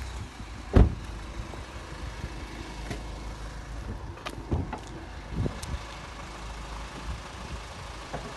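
A car door shuts with a loud thump about a second in. Later come a few lighter clicks and knocks as the hood latch is worked and the hood is lifted, over a steady low rumble.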